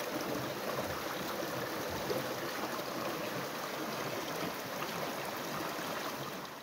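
Steady rush of flowing water, a stream's current.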